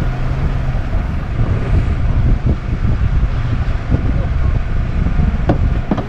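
Fishing boat's engine running steadily: a low hum under a dense rumbling noise.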